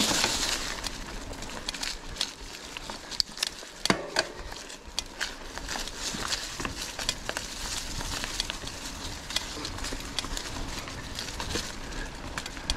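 Mountain bike rolling along a forest single track, its tyres crackling over the ground litter with many scattered clicks and snaps. A louder rush of hiss comes in the first second.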